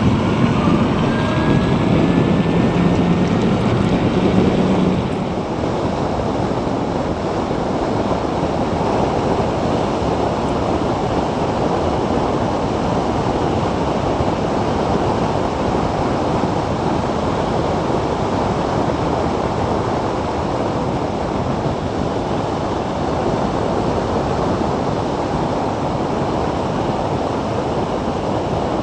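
Wind rushing over a bike-mounted microphone, with tyre and road noise, as a Zero DSR electric motorcycle is ridden at speed; there is no engine note. A louder low hum over the first five seconds stops abruptly, leaving a steady rush.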